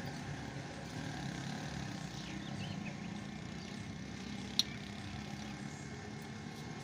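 Steady low background rumble, like distant traffic, with faint chirps above it and one sharp click about four and a half seconds in.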